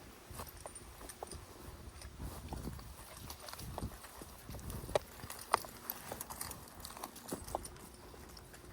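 Footsteps walking on a hard surface, with scattered sharp light clicks.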